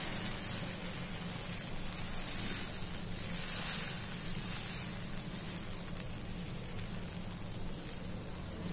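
Dosa batter sizzling steadily on a hot iron tawa as it is spread out with a ladle.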